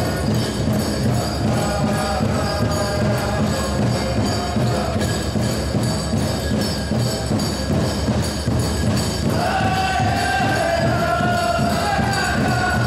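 Powwow drum and singers: a steady drumbeat under chanted singing, with a high-pitched vocal phrase coming in loudly about nine seconds in.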